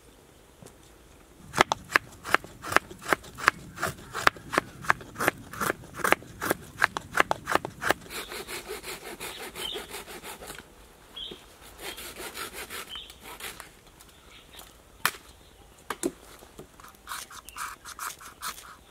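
A knife blade carving and scraping dry wood to make tinder shavings. It starts with sharp cutting strokes, about two a second, then changes to longer rasping scrapes, and ends with a quick run of short scrapes.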